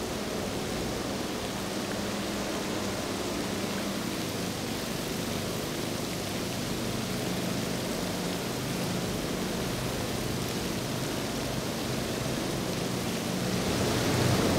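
Steady hiss of rain and water with the low drone of outboard boat engines running past at speed; the engine sound grows louder near the end.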